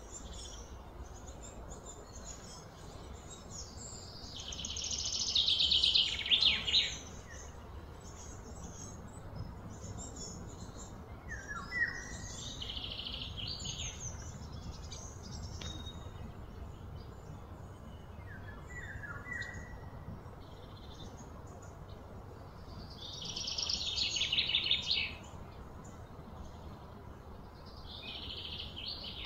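Wild birds calling: two loud rapid trills of two or three seconds each, one about five seconds in and one near the end, and a few short falling whistled notes between them. A steady low rumble runs underneath.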